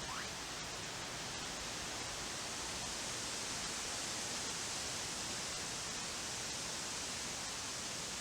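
Steady outdoor hiss of background noise. A faint short rising whistle sounds right at the start.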